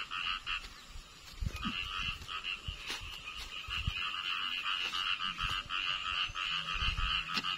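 A chorus of many frogs calling from flooded rice paddies after rain, as a dense, fast-pulsing trill. It drops away about half a second in and comes back about a second later. A few dull low thumps sound underneath.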